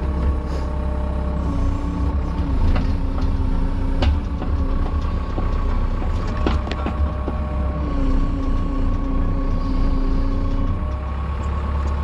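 Cat 305.5E2 mini excavator's diesel engine running with the hydraulics working as the boom and stick move, the engine note shifting pitch a few times with the load. A few sharp clicks or knocks stand out about 3, 4 and 6½ seconds in.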